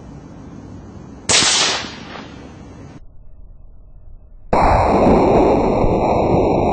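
.223 Remington rifle firing a single shot, a sharp crack that dies away over about half a second. About four and a half seconds in, a loud steady noise starts and keeps going.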